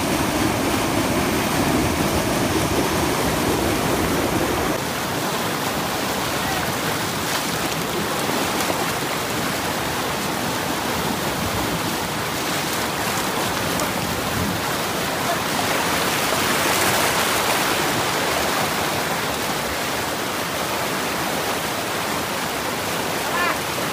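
White-water river rapids rushing over boulders, a steady, loud sound of churning water. About five seconds in it becomes slightly quieter and thinner in the low end.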